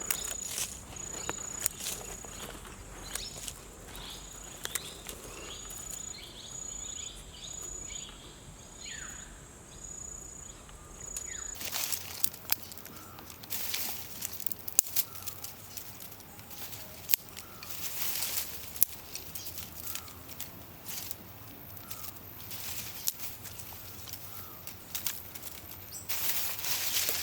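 Outdoor ambience: a high chirp repeats about once a second, with rustles and clicks of handling over it. About halfway through the chirping stops, and louder scattered rustles and clicks follow.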